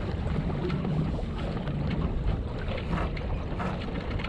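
A small Flash 165 sailing dinghy under way: steady wind rushing over the microphone and water washing along the hull, with a couple of faint clicks about three seconds in.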